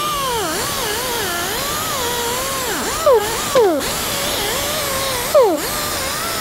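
Air die grinder with a wire wheel running against a steel plate, its whine wavering in pitch as it is pressed on and eased off. Three brief louder scrapes with a falling pitch come about three, three and a half and five and a half seconds in. The wheel is scrubbing heat marks and oxidation off the plate.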